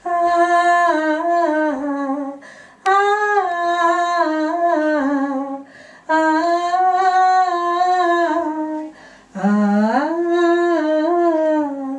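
A woman humming the melody of a Bengali song in four long, smoothly gliding phrases, with short breaks between them.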